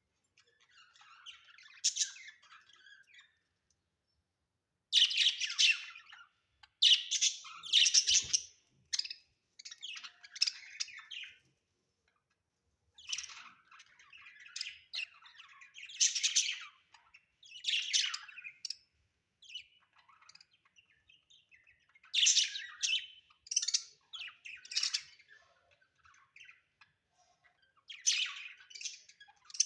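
Budgerigars chirping in short bursts of high chirps, with a few brief pauses.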